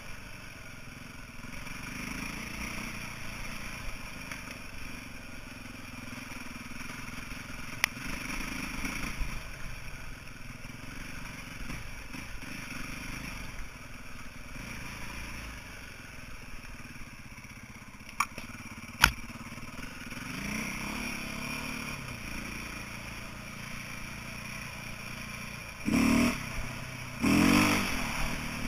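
2008 KTM 450 EXC's single-cylinder four-stroke engine running as the dirt bike is ridden over rough trail, its note rising and falling with the throttle. A few sharp knocks come through along the way, and two loud bursts come near the end.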